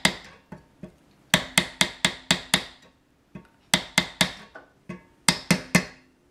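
Light, quick taps of a small mallet on a wooden dowel, in short runs of several strikes with brief pauses, driving a plastic squirrel-cage fan wheel down onto the shaft of a pellet-stove convection blower motor.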